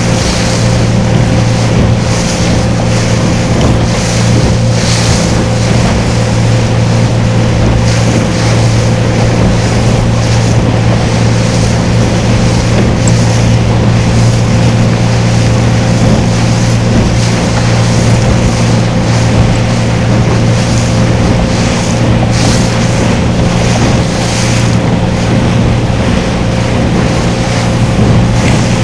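A boat's engine running steadily at cruising speed: a constant deep hum with a thin steady tone above it. Over it lies a hiss of water and wind on the microphone that swells and fades every second or two.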